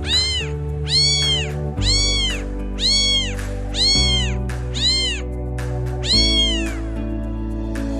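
Cat meowing about once a second, seven high, rise-and-fall meows with the last one drawn out, over background music of sustained chords.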